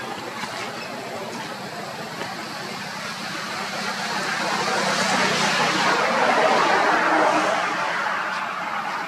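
A passing motor vehicle: steady engine and road noise that swells to its loudest about six to seven seconds in and then eases off.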